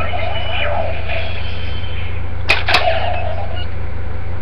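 Electronic sound effects from a Power Rangers Megaforce Gosei Morpher toy: gliding, wavering synthesized tones for about two seconds, then two sharp clicks about two and a half seconds in, followed by a short tone. A steady low electrical hum runs underneath.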